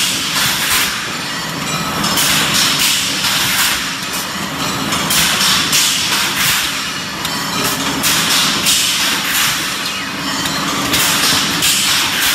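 Automatic cup packaging and counting machine running: a steady motor hum with a recurring cycle of hissing, clattering bursts about every three seconds as it wraps and pushes out stacks of cups.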